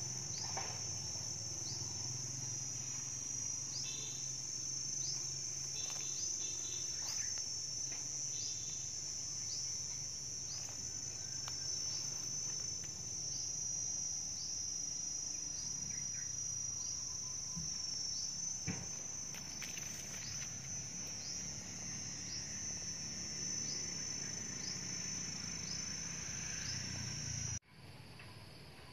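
Insects shrilling in a steady high drone, with short falling chirps repeating about once a second; the drone cuts off suddenly near the end.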